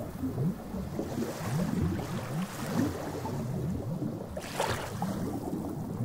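Seawater lapping and sloshing in an unbroken wash, with a brief splash about four and a half seconds in.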